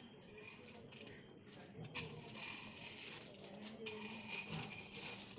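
Night insects trilling steadily, a high, evenly pulsing tone, with a sharp click about two seconds in and faint scraping of sand being stirred in a roasting pan over a wood fire.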